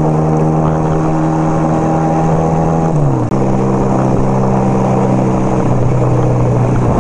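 1975 Kawasaki KZ400 cafe racer's engine running steadily under way, with wind rushing over the microphone. About three seconds in the engine note slides down, with a brief dip in sound, as it shifts up a gear, then holds steady at the lower pitch.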